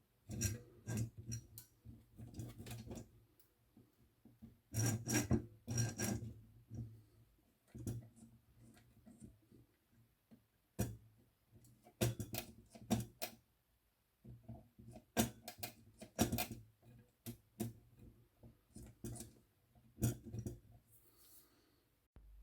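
Irregular clicks, taps and clatter of an Olivetti Lettera 22 portable typewriter's parts and tools being handled during reassembly, coming in quick clusters with short pauses between them.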